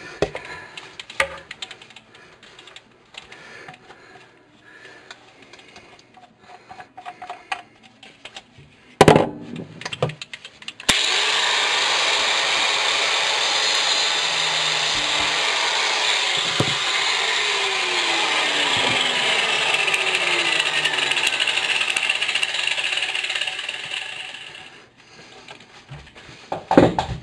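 Light scraping and clicking, then a single loud knock; about eleven seconds in a power tool starts and runs steadily for some thirteen seconds, its pitch sliding down now and then, cutting away a pipe that is in the way.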